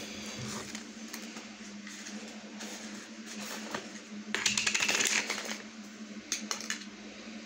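Small handling noises of plastic: a dense crinkling rattle about four and a half seconds in, then a few sharp clicks, over a steady low hum.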